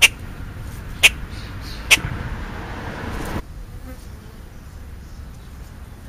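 A crow right at the microphone: three sharp taps about a second apart, then a rushing flutter of wings for about a second and a half that stops suddenly.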